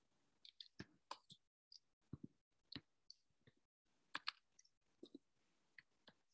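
Computer keyboard being typed on: a faint, irregular run of quick key clicks.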